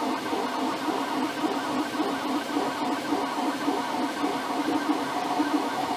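FDM 3D printer at work, its stepper motors whining in shifting pitches as the print head moves back and forth, over the steady hiss of its cooling fan.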